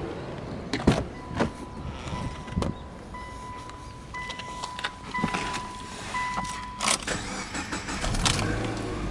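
Clicks and knocks from the car's door and cabin, then a dashboard warning chime beeping repeatedly with the key in the ignition. Near the end the Subaru Legacy 2.0GT's EJ20 turbocharged flat-four cranks and starts, settling into a low, steady idle.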